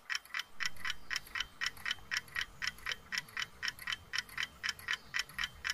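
Steady, even ticking, about four ticks a second.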